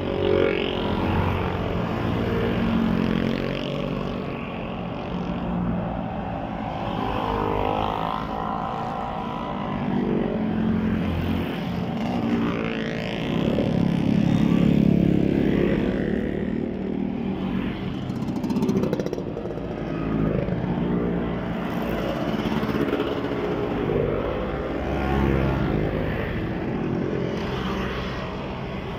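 A long line of motor scooters riding past one after another, their small engines swelling and fading and sliding in pitch as each one goes by.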